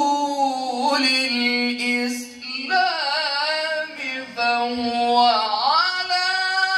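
A male Quran reciter's solo voice in melodic mujawwad-style recitation, holding long notes and sliding between pitches in ornamented turns. The phrases are broken by brief breaths about two and a half and four seconds in.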